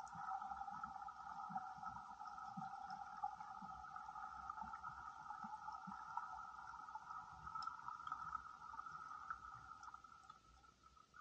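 Faint underwater ambience: a steady mid-pitched hum in two bands, with scattered faint ticks and clicks, easing off near the end.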